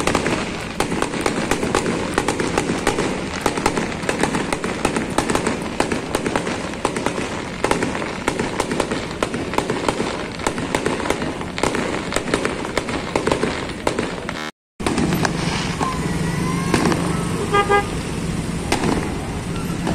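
Aerial fireworks crackling in a dense, continuous barrage of rapid pops for about fourteen seconds. After a short break, street traffic idles under the continuing fireworks, and a vehicle horn toots briefly near the end.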